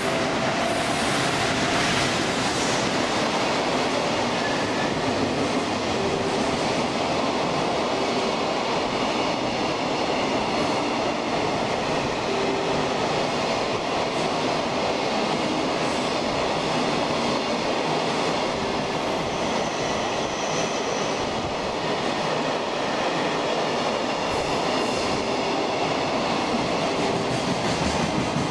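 Down freight train passing along the platform, a long steady rumble of wheels on rails that keeps up without a break.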